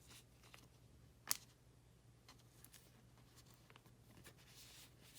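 Near silence with faint handling sounds of a trading card going into a plastic card sleeve, and one sharp click a little over a second in.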